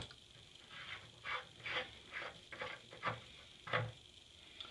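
Short metallic scrapes and clicks as the retaining nut on a faucet valve stem is loosened with a crescent wrench and then unscrewed by hand: about ten brief scrapes at uneven intervals.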